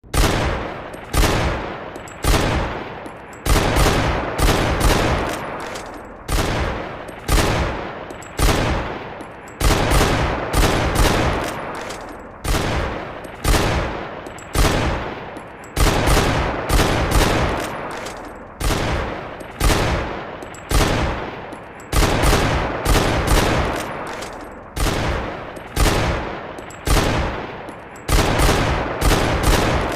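Desert Eagle pistol firing shot after shot, each sharp report trailing off in a long echo, roughly one or two shots a second, sometimes two or three in quick succession.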